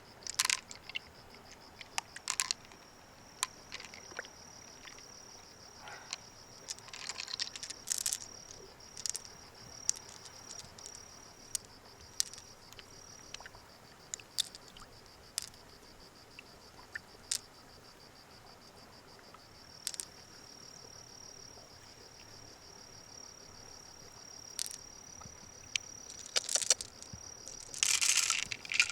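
An insect, cricket-like, trills steadily in a high, finely pulsed tone, falls silent for several seconds midway, then resumes. Scattered sharp clicks and scrapes come throughout, with a louder cluster of rustling, crunching noise near the end.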